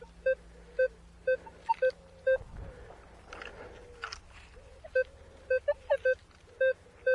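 Minelab Manticore metal detector sounding short, repeated target beeps, about two a second, as the coil is swept back and forth over a buried metal object. The beeps stop for a couple of seconds, with some rustling and a low thud, then start again.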